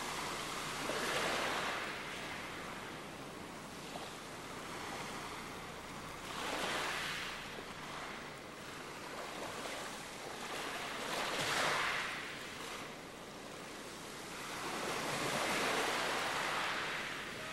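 Ocean waves washing in and drawing back in slow swells, four times, each a rising and falling hiss.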